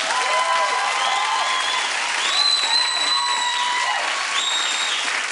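Studio audience applauding steadily, with several high held whistles rising over the clapping.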